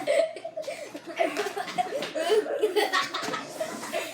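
Children laughing, in short broken bursts.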